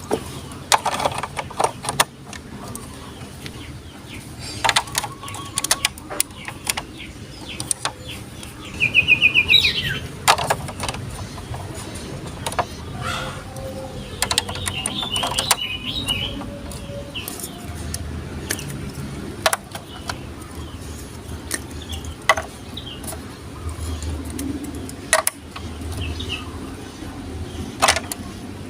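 Marbles rolling down a Lego Duplo plastic block track, a steady low rumble broken by sharp clicks and clacks as they strike the bricks and each other. A brief high chirping sound comes about nine seconds in.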